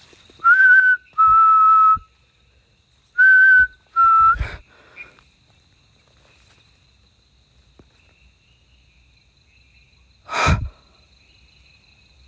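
Whistling: two pairs of clear, steady whistled notes, each pair a slightly higher short note followed by a slightly lower one, the second pair coming a second or so after the first. Near the end comes one short, loud, breathy burst, over a faint steady insect trill.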